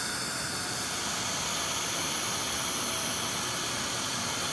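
Steady rushing hiss that cuts off abruptly near the end.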